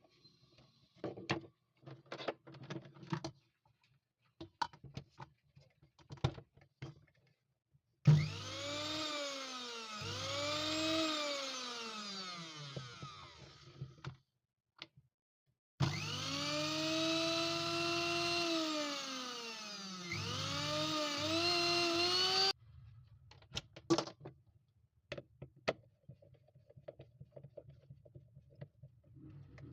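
A small electric motor run three times, speeding up and slowing down in pitch each time; the last run cuts off suddenly. Clicks and knocks of handling come before and after.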